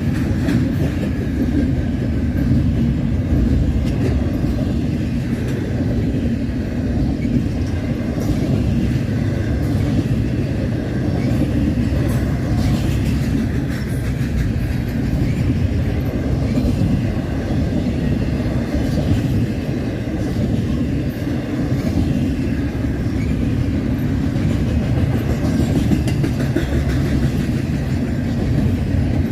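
Double-stack container train cars rolling past: a steady heavy rumble of steel wheels on the rails with light wheel clicks, and a faint wheel squeal now and then.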